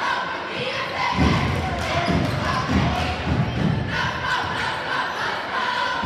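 Basketball dribbled on a hardwood gym floor: a string of thuds, spaced unevenly about half a second to a second apart, over chatter from the spectators.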